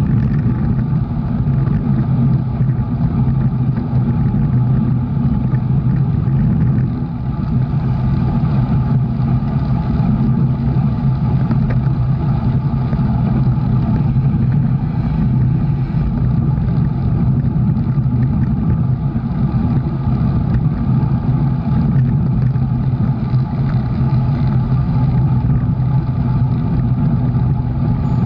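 Steady drone of a moving motor vehicle's engine, a constant low hum with an even rushing hiss over it.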